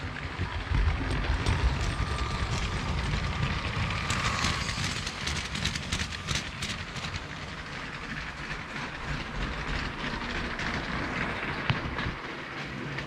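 Motorised Lego train running along plastic Lego track, with a rumble and a run of sharp clicks from the wheels over the track joints, busiest as the train passes close about four to seven seconds in.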